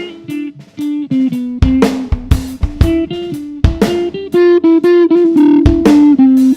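Electric guitar, a PRS Hollowbody II, played through the SubDecay Vocawah vowel-shift filter pedal into a Marshall JCM 900 amp, a quick run of single notes over a drum kit playing a beat.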